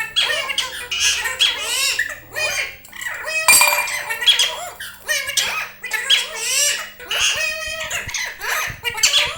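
Pet parrot calling and squawking: a run of short calls that slide up and down in pitch, with a loud, harsh squawk about three and a half seconds in.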